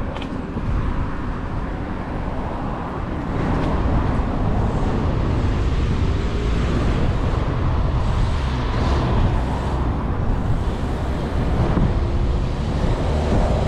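Steady road traffic going by alongside, mixed with wind rushing on the microphone of a moving rider; it gets a little louder about three and a half seconds in.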